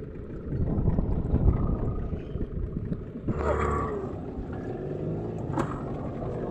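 A small wooden fishing boat's engine runs under a steady low rumble of wind and waves, with a louder surge of rumble in the first two seconds. About three and a half seconds in, a short wavering tonal sound rises over it.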